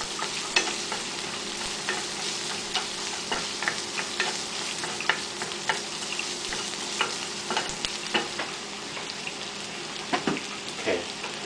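Oil sizzling steadily in a stainless steel frying pan as orange peel and dried red chilies fry. A wooden spatula stirs and scrapes against the metal pan, making irregular clicks and taps, more of them near the end.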